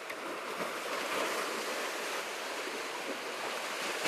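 Sea waves washing against the concrete tetrapods of a breakwater: a steady hiss of surf.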